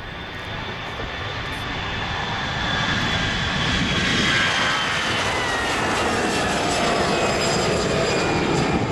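Twin CFM56 turbofan engines of an Airbus A320-211 at takeoff thrust as the jet rolls, lifts off and climbs past. The engine noise grows louder over the first few seconds and then holds, while a high engine whine falls steadily in pitch as the aircraft passes.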